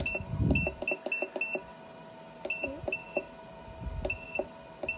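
Glitter 811H battery spot welder beeping as its control buttons are pressed: runs of short, high, identical beeps, several a second, with brief pauses between runs, as the weld power is stepped up to 95%.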